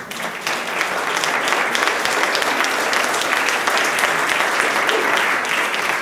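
Audience applauding, many people clapping steadily.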